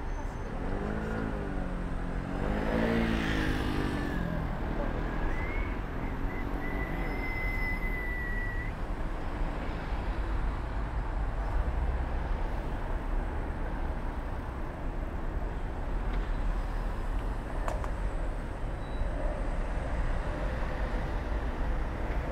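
Ottobock B500 electric wheelchair driving along a path, a steady low rumble of its motors and tyres. About a second in a wavering voice-like sound rises and falls for a few seconds, and a thin high whistle follows briefly.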